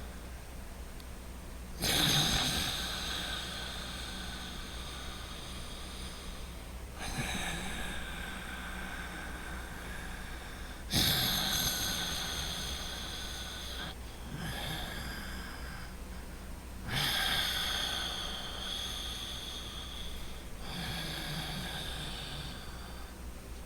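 Slow, loud, deliberate breathing through the nose: about six long, hissing breaths of several seconds each, alternating stronger and softer, the three strongest starting sharply about two, eleven and seventeen seconds in.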